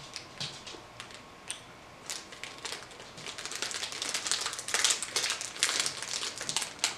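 Plastic snack wrapper crinkling and crackling as it is worked open by hand, the crackles sparse at first and growing denser and louder about halfway through.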